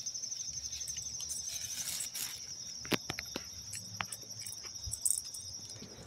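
Steady high-pitched insect chorus, a continuous fast-pulsing trill, with a few faint clicks or taps in the middle.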